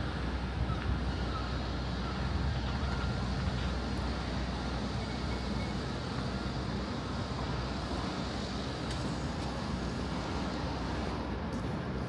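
Steady outdoor city background noise: a low, even rumble with no single event standing out.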